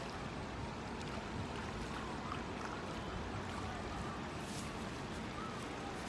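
Steady rush of a small creek's current, with a few faint bird chirps over it.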